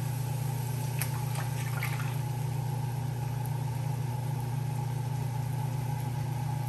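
Canned coconut milk pouring into a frying pan of sautéed aromatics, with a few faint splashes about one and two seconds in, over a steady low hum.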